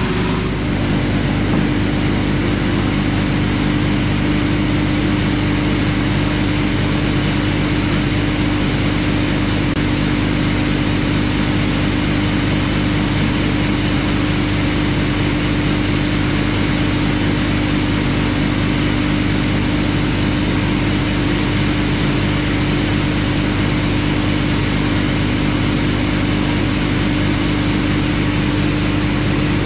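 Air compressor running steadily with a constant hum while airing up a semi truck drive tire toward about 100 psi.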